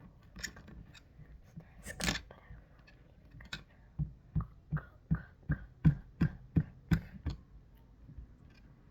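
Slime being mixed: a crackle about two seconds in, then a run of about ten sticky pops at a steady pace of roughly three a second.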